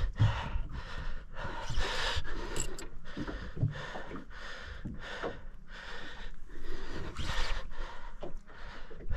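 A man breathing hard in quick, heavy breaths, about one or two a second, from the strain of fighting a large giant trevally on a rod.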